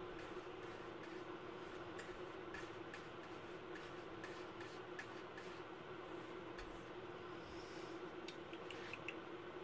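Faint steady hum of room noise with scattered light, irregular ticks and clicks, a small cluster of them near the end.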